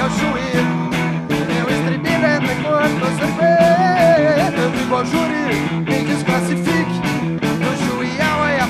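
A rock band playing live on electric guitars and bass guitar over a steady beat, with a bending lead melody line.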